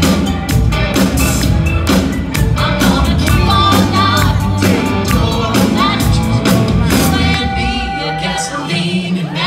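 Live band playing a song: a woman singing into a microphone over electric guitar, bass guitar, keyboard and a steady drumbeat.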